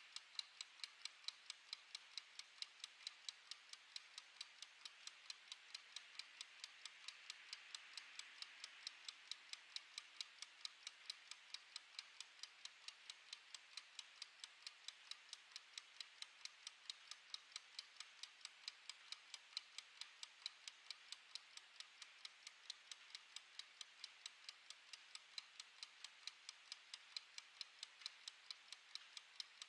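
Quiet, even ticking of a clockwork mechanical kitchen timer's escapement as it counts down, about two ticks a second.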